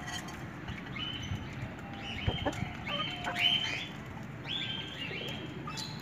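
A flock of desi golden Misri chickens, hens and roosters together, calling: short high calls that rise and then hold, about one a second, with a few sharp clicks among them.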